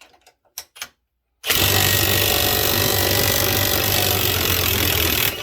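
Ryobi 18V One+ HP brushless 1/2-inch impact wrench hammering steadily on a grade 8 fine-thread bolt, stripping its thread. A few light handling clicks come first; the wrench starts about a second and a half in and stops just before the end.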